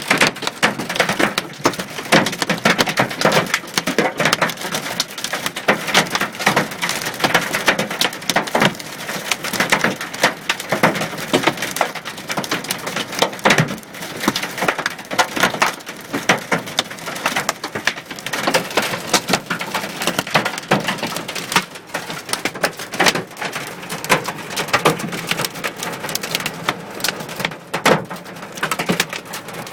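Hailstones hitting a car's body and windscreen, heard from inside the car: a dense, continuous clatter of hard impacts over a steady rush of falling ice and rain.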